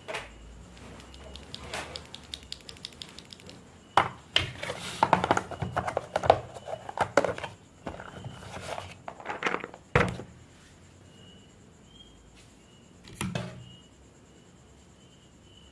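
Mechanical keyboard switches being pressed: a quick, even run of light key clicks, then a few seconds of dense, louder keystroke clacks, and two single clacks near the end.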